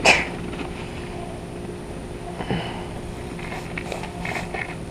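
Baitcasting reel being cranked steadily, retrieving a crankbait through the water, under a brief rush of noise at the start.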